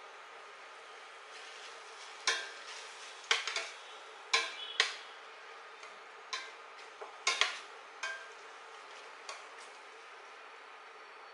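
Metal spoon stirring egg and tomato in a stainless steel pot, clinking and scraping against the pot about ten times, most densely in the middle, over a faint steady hiss.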